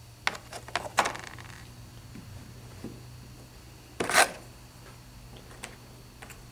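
Small pieces of plaster rock casting clicking and clacking against each other and the plaster wall as they are handled and pressed into place. A quick run of light clicks comes in the first second, then one louder, longer clatter about four seconds in.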